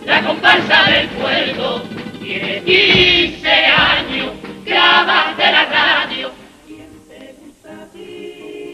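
Comparsa male chorus singing a Cádiz carnival pasodoble in harmony, with Spanish guitar accompaniment. The singing drops back about two-thirds of the way through to a quieter passage.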